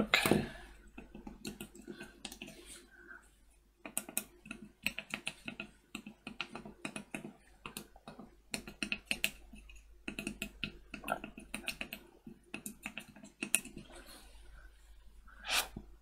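Tactile push-button switches on a freshly soldered 4x4 hexadecimal keypad circuit board being pressed by hand, a run of quick, irregular clicks with a short pause after about three seconds. A louder short noise comes near the end.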